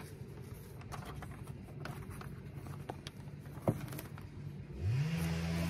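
Faint rustling and light ticks of a paper leaflet being handled, over a low steady hum. About five seconds in, an engine revs up quickly and holds, louder.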